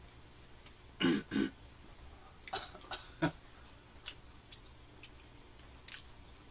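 A man clears his throat in two short bursts about a second in, then faint mouth clicks and smacks from chewing.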